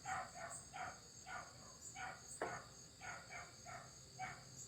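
A dog barking faintly in a run of short, quick yaps, about three a second, with a single sharp click about two and a half seconds in.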